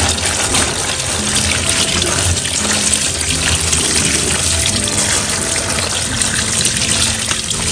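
Tap water running steadily and splashing onto plastic-wrapped frozen barramundi (siakap) in a stainless steel sink, thawing the fish.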